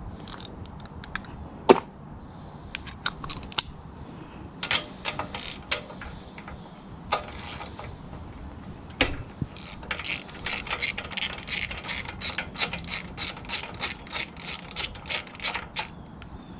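Ratchet wrench clicking while a spark plug is being worked loose: scattered clicks and knocks at first, then a fast, even run of ratcheting clicks from about ten seconds in.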